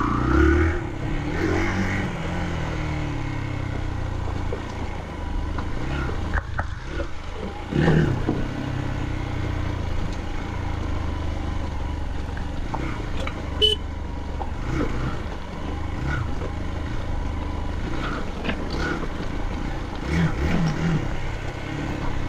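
Hero Xpulse 200's single-cylinder engine running at low speed off-road. Its note drops over the first few seconds, then holds steady at low revs.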